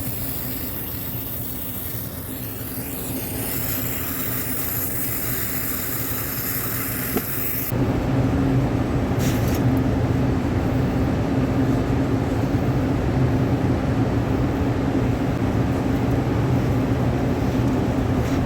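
Rooftop air-conditioning unit running with a steady mechanical hum. About eight seconds in the hum abruptly grows louder and deeper.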